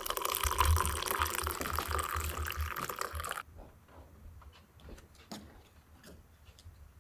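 Running water, cutting off abruptly about three and a half seconds in, followed by faint scattered clicks and knocks.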